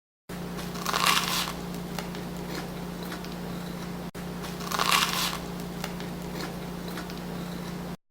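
Two crunchy bites into a crisp pan-toasted toast pizza, about a second in and again about five seconds in, over a steady low room hum.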